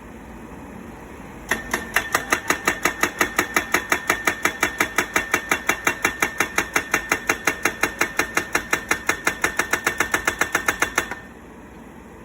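Solar pile driver's hammer striking a steel pile in a rapid, even run of blows, about six a second, each with a metallic ring. The blows start about a second and a half in and stop shortly before the end, over a steady machine hum.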